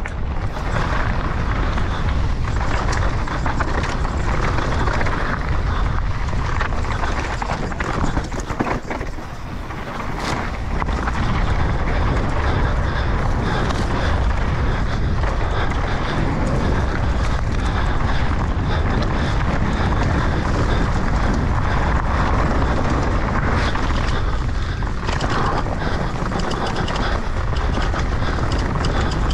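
Mountain bike descending a rough dirt trail at speed: tyres rolling over dirt and stones, with frequent knocks and rattles from the bike, and wind buffeting the camera microphone. The level dips briefly about nine seconds in.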